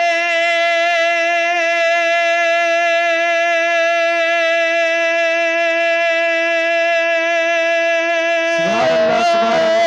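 A man's voice holding one long, high sung note of a Bengali Islamic devotional song (gojol), the pitch wavering slightly. Near the end other sounds come in beneath it.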